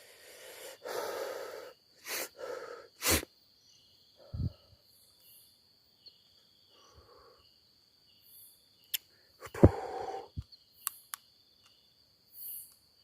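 Insects chirring steadily, broken by several short breathy rustles and a few sharp clicks, with one loud knock about ten seconds in.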